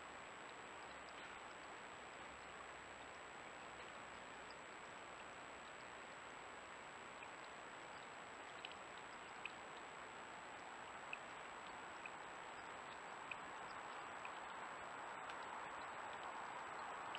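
Trail camera recording its own faint hiss with a steady thin high-pitched electronic whine, and a few faint short ticks around the middle.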